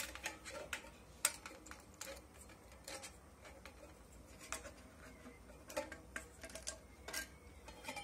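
Irregular light metallic clicks and taps as a steel vernier caliper is set against the metal housing of a vacuum-cleaner turbine motor and the motor is handled while being measured.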